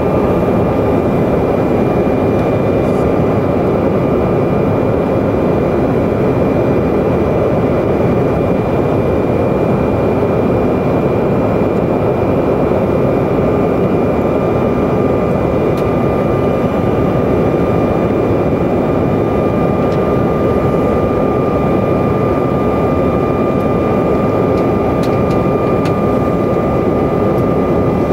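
Cabin noise inside a Bombardier CRJ-200 regional jet in flight: a steady rush of airflow and rear-mounted GE CF34 turbofan engines, with a thin constant whine above it.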